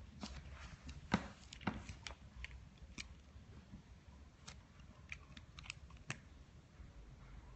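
Faint, irregular clicks and taps of inking by hand: a pen working on paper and small knocks at the drawing desk, the two loudest about a second in and half a second later.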